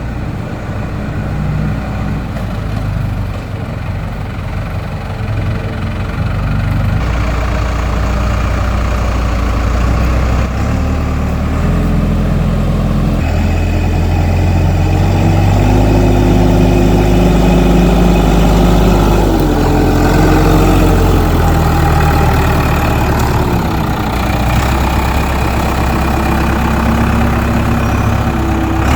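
Engine of a digging machine running, its pitch shifting up and down under changing load in the second half.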